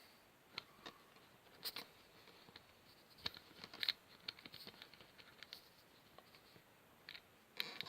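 Faint, scattered light clicks and taps from a plastic wall socket being handled and worked loose from the wall.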